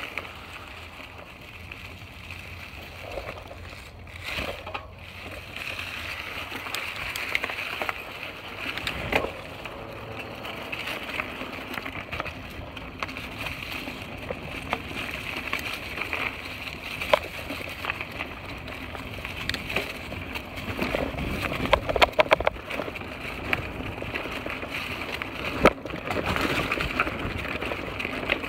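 Mountain bike rolling over dry, leaf-covered dirt singletrack: a steady rustle and crunch of tyres on leaves, with rattles and sharp knocks as the bike goes over roots and bumps, busier and louder in the last several seconds.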